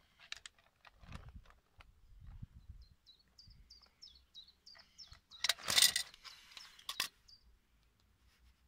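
Clicks and scraping of water-pump pliers gripping a threaded black steel pipe, with a louder metallic clatter a little past halfway. A bird sings a quick run of falling chirps in the background.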